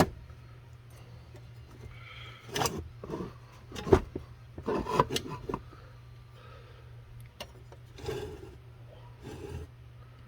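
Handling noise of small plastic gauge-cluster parts being fitted into a 1968 Corvette instrument housing: scattered clicks, knocks and rubbing, the sharpest about four seconds in, over a steady low hum.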